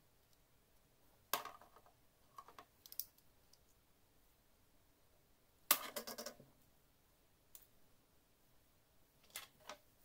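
Scattered light clicks and taps of a small magnet and thin wire being handled and set down on a wooden desk, in several short clusters, the loudest about halfway through.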